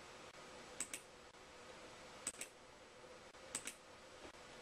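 Three faint pairs of quick, sharp clicks about a second and a half apart, over quiet room tone with a faint steady hum.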